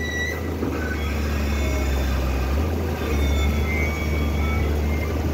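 A sand-pumping boat's engine running steadily with a low drone, under an even rushing noise.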